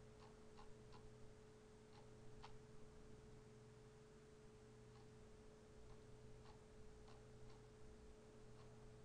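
Near silence: room tone with a faint steady hum and a scattering of faint, irregular ticks.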